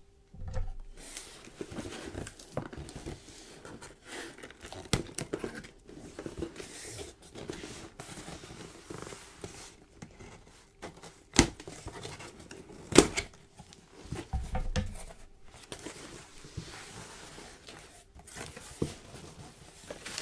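Packaging being opened by hand close to the microphone: cutting and tearing of tape and cardboard with crinkling wrappers and many small clicks and taps. Two sharp, louder knocks come in the second half.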